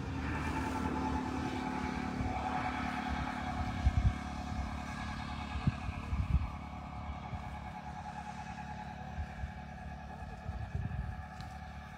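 A small engine running steadily, its pitch wavering slightly, with a few low thumps of wind on the microphone.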